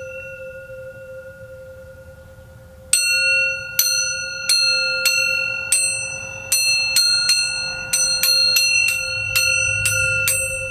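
A length of square metal tubing hung on fishing line, ringing like a chime as it is tapped with pliers. A fading ring is followed, about three seconds in, by a quick run of about fifteen strikes, each ringing over the last in several clear overlapping tones: a weird, chorusy sound.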